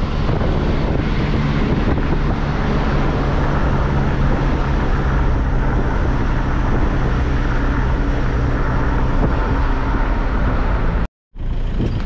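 Car driving along a road: a steady low engine hum under continuous wind and tyre noise. About eleven seconds in it cuts out to silence for a fraction of a second, then resumes.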